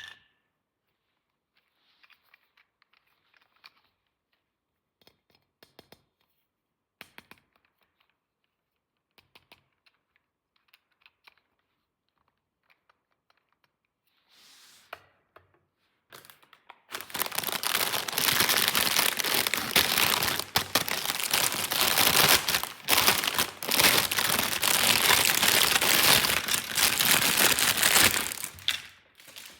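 Scattered soft clicks and taps, as of small toy pieces being handled. A little past halfway a long stretch of loud crinkling and tearing of packaging starts and stops shortly before the end.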